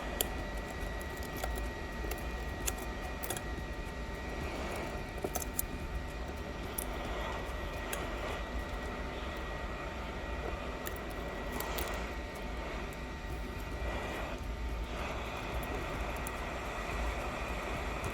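Small electric blower running steadily with a faint whine, with scattered light clicks and taps of tools on the phone.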